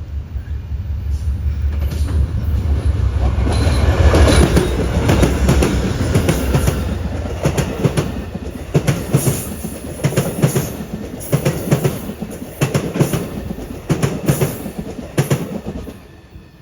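Amtrak California Zephyr passenger train passing: a heavy diesel locomotive rumble builds and peaks about four seconds in, then the cars' wheels clickety-clack over gaps in the rail in regular paired clicks. The sound drops away sharply near the end as the last car goes by.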